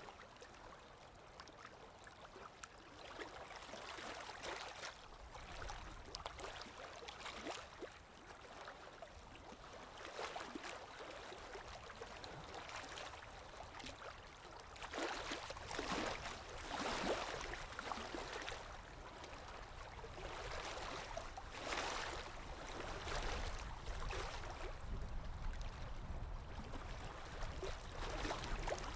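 Running water, rising and falling in uneven swells.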